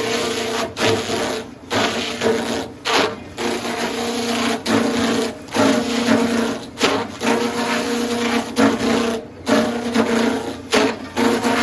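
Sawmill machinery running with a steady hum while a blade cuts through wood, the cutting noise dipping briefly every second or so.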